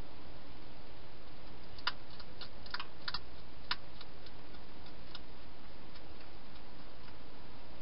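Wild hedgehog eating from a bowl: irregular sharp clicks of chewing, bunched together about two to four seconds in, over a steady hiss.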